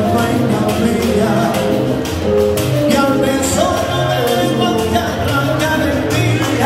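Latin dance band (orquesta) playing, with singing over a steady percussive beat.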